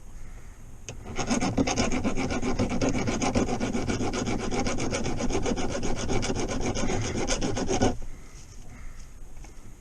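Hand file rasping back and forth over a fresh weld on a metal gear shifter, smoothing the weld down. Rapid, even strokes start about a second in and stop near the end.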